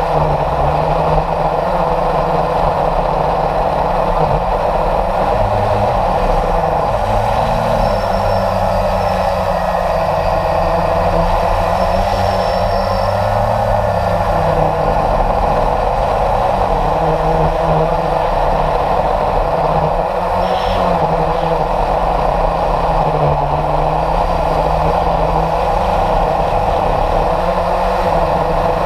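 Motor of a radio-controlled model jet running steadily in flight, heard up close from its onboard camera.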